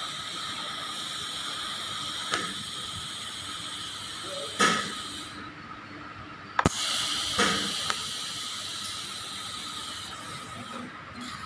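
TIG (argon) welding arc on thin stainless steel pipe: a steady hiss with a high buzz. It breaks off for about a second near the middle and comes back with a sharp click as the arc restarts.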